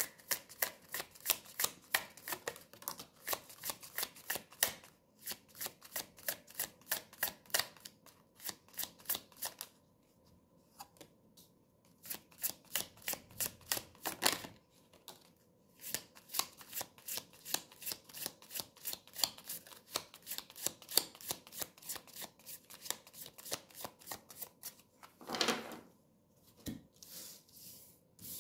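A deck of tarot cards being shuffled by hand: a rapid patter of card flicks, about four or five a second, in several runs with short pauses. One louder swish comes near the end.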